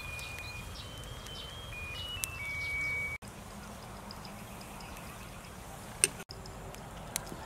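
Outdoor ambience with a low, steady rumble. In the first three seconds a string of clear, high whistled notes, each held at one pitch and stepping up and down. A single sharp click about six seconds in.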